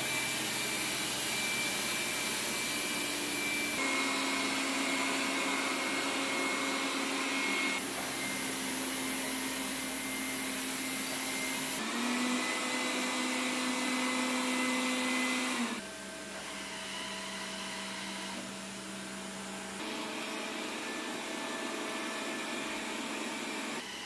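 Xiaomi Mijia 1C and Mi Robot Vacuum Mop P robot vacuums running in turn at different suction settings: a steady rush of fan noise with a faint hum, its pitch and tone changing every four seconds or so at each switch. About two-thirds of the way through, it drops noticeably quieter at the lower settings.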